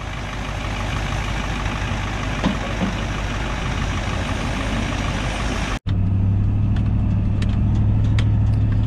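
Diesel engine of a tracked butt-n-top log delimber running as the machine swings its boom, warming up its hydraulics. About six seconds in, this cuts to a steady low engine drone heard inside a pickup's cab while it drives.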